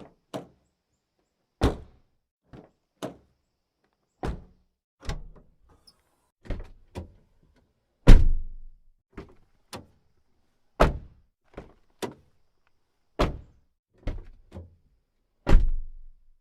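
Car doors opening and shutting over and over: a string of separate latch clicks and heavy door thuds with short gaps between. The loudest slams come about eight seconds in and near the end.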